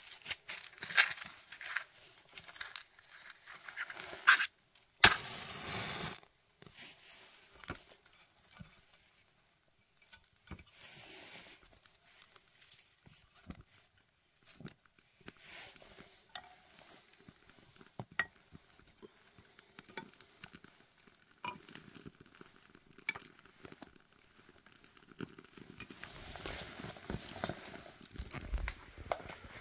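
Irregular small crackles, snaps and rustling as a campfire is being lit, with a louder rustling burst about five seconds in.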